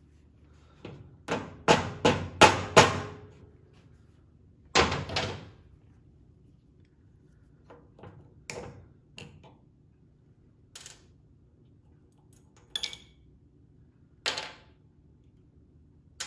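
Clicks and knocks of a small garden-tractor carburetor and its parts being handled and set down on a workbench during disassembly. A quick run of sharp taps comes in the first few seconds, then single clicks every second or two.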